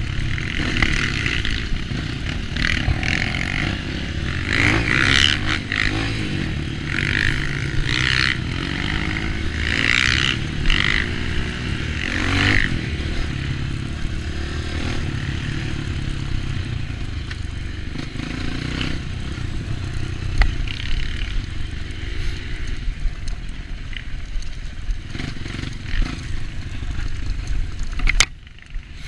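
Off-road dirt bike engine running along a trail, its note surging up and down repeatedly in the first half and steadier after. The sound dips sharply for about a second near the end.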